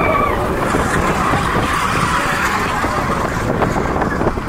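Seven Dwarfs Mine Train roller coaster cars rumbling and rattling along the track at speed, with wind rushing over the microphone; the last of a rider's scream trails off at the very start.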